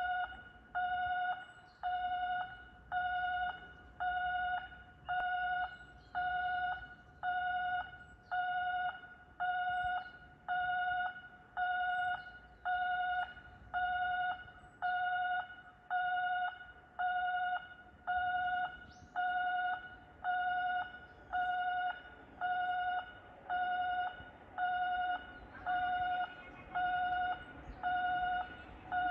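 Electronic railway warning bell ringing steadily, one fading ding about once a second, warning of an approaching train.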